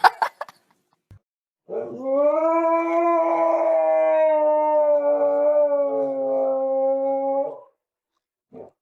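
Pet dog howling: one long, drawn-out howl of about six seconds that swoops up at the start, holds steady, then trails off.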